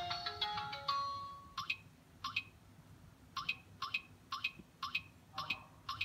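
Electronic touch keypad of a Douwin F750S fingerprint door lock. It plays a quick run of electronic tones as the keypad wakes, then gives a short identical beep for each key press as a user password is typed in, about eight beeps at roughly two a second.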